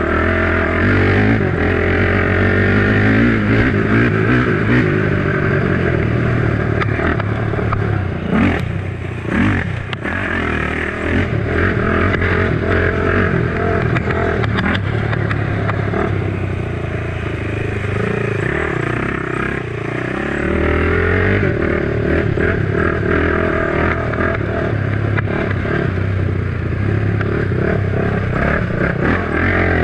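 Honda 450 sport quad's single-cylinder four-stroke engine running hard under throttle, revving up and down as it is ridden along a dirt trail. The revs drop off briefly about eight seconds in and again for a few seconds around the middle, with a few knocks from the machine near the first dip.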